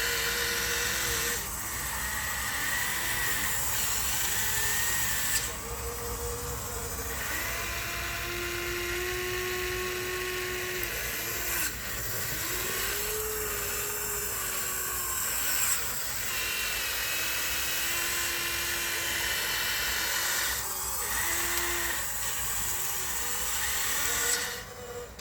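Small electric motors and plastic gearboxes of radio-controlled construction models whining as they work, their pitch gliding up and down as the machines start, stop and change speed. The sound cuts off abruptly just before the end.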